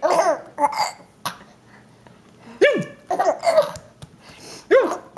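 A baby laughing in five short, high-pitched bursts, each rising and falling in pitch, with quiet gaps between them.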